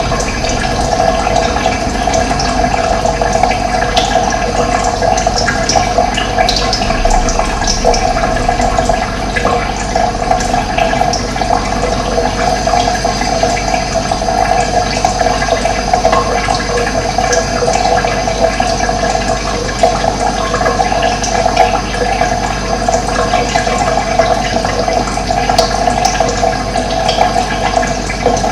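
Steady rush of flowing water, with occasional faint bird chirps.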